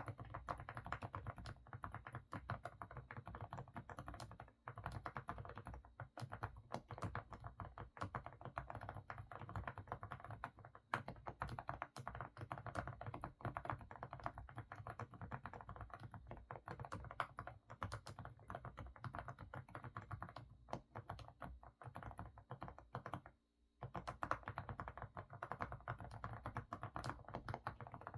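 Continuous fast typing on an AK68 mechanical keyboard with semi-silent Didimdol (stepping-stone) switches, giving a full, muffled keystroke sound. The typing breaks off for a moment about three-quarters of the way through, then carries on.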